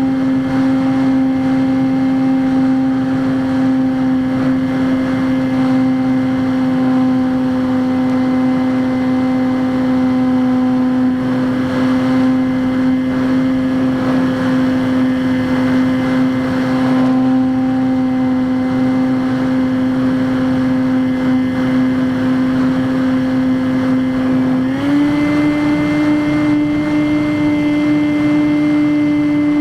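Skywalker X5 flying wing's electric motor and propeller whining steadily in flight, with wind rush underneath. About 25 seconds in, the pitch steps up a little as the throttle is advanced.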